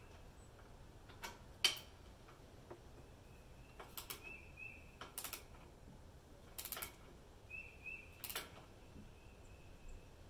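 Socket ratchet clicking in short bursts every second or two as a new spark plug is snugged down into the cylinder head of a Kawasaki FR730V engine.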